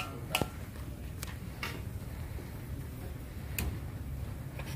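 Wood fire under a wok crackling, with a few scattered sharp pops over a steady low rumble.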